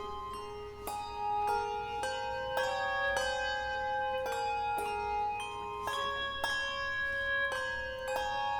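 Instrumental Christmas music: a melody of ringing struck or plucked notes, several sounding together, with a new note about every half second and no singing.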